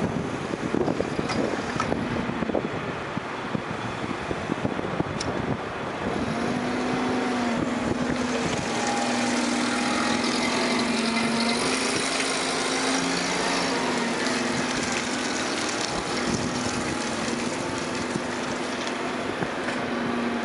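Toyota 42-5GG18 forklift's LP-gas engine running as the truck drives around, with a steady hum that gets louder about six seconds in as it comes close and stays up while it moves past and away.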